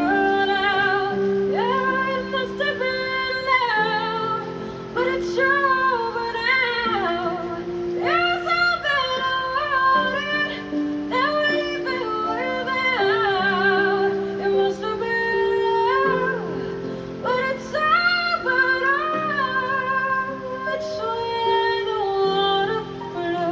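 A woman singing a melody with wavering vibrato over held accompanying chords, with some plucked string instrument.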